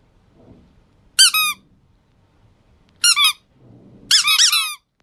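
Rubber squeaky-toy squeaks, high and chirping, in three groups: one about a second in, one about three seconds in, and a quicker run of several squeaks about four seconds in. Faint handling rustle comes between them.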